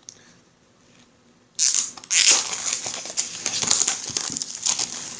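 Clear plastic wrapper crinkling as it is pulled off a boxed card deck, starting about a second and a half in and continuing as a dense run of crackles.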